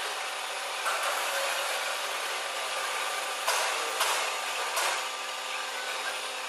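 CNC end mill cutting a pattern into a large metal roller: a steady high cutting hiss over a low machine hum, with short louder surges of cutting noise about a second in and again around three and a half, four and five seconds in.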